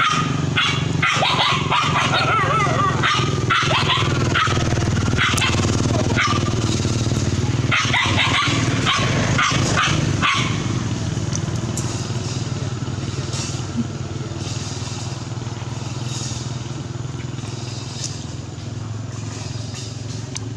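Several dogs barking and yelping in quick, repeated bursts for about the first ten seconds, then mostly falling quiet apart from a few faint yaps. A steady low hum runs underneath throughout.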